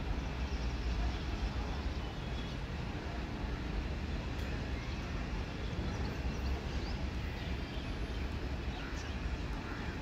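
Steady low rumble and background noise of a passenger train rolling away into the distance, with a few faint high chirps over it.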